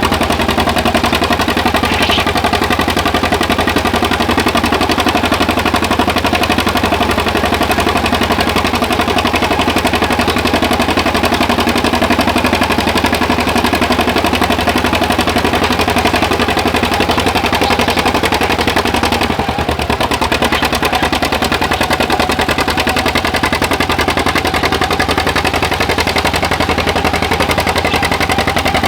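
An engine running steadily with a rapid, even exhaust beat. It dips briefly about two-thirds of the way through.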